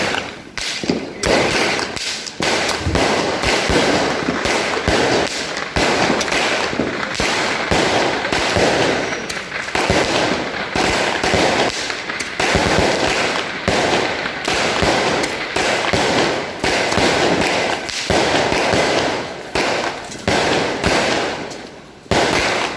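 A multi-shot consumer fireworks cake firing a long, rapid series of shots, launch thumps and bursts following close on one another and overlapping, with a short lull near the end before another bang.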